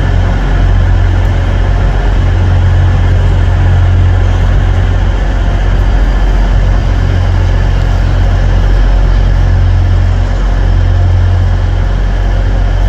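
Steady, loud low hum from a Class 91 electric locomotive, even throughout with no rise or fall.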